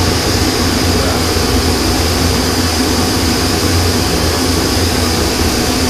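MSR PocketRocket 2 canister stove burning at full flame on an MSR IsoPro gas canister: a loud, steady rushing hiss of gas and flame with a low rumble underneath.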